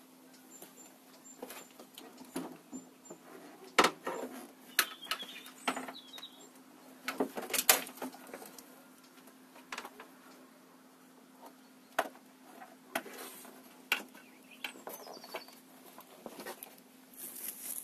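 Irregular knocks, clicks and scrapes as the window regulator frame of an Audi A6 C5 front door is worked loose and pulled out of the door, the loudest knocks about 4 and 7.5 seconds in. Birds chirp faintly in the background.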